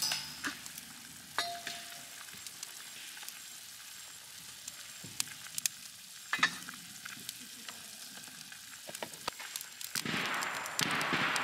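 Food sizzling in a frying pan, with scattered pops and a light clink of a utensil against the pan; the sizzle swells louder near the end.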